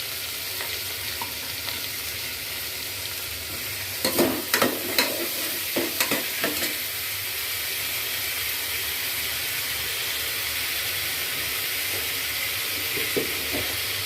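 Chopped tomatoes with onion, ginger and garlic frying in oil, a steady sizzle. A cluster of knocks and scrapes of a stirring utensil against the pot about four to seven seconds in, and a couple more near the end.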